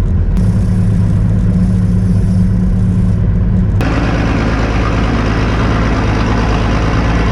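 An old combine's engine running steadily at idle, just brought back to life on a freshly charged battery. About four seconds in, its sound turns brighter and noisier.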